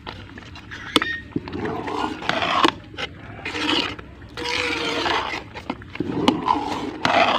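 Metal spoon stirring thick milk porridge in an aluminium pot: repeated scraping swishes against the pot, with a few sharp knocks of the spoon on the metal.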